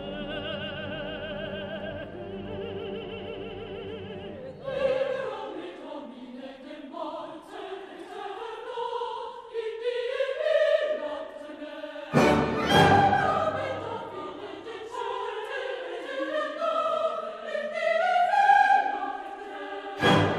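Background music: classical vocal music, a singing voice with vibrato over orchestral accompaniment. A held chord gives way after about four seconds to a melody that climbs and falls, with a strong new entry about twelve seconds in.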